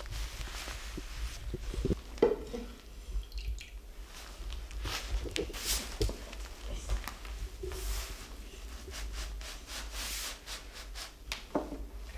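Bristles of a large calligraphy brush loaded with ink swishing and dragging across paper in repeated strokes, with a few sharp taps as the brush meets the sheet.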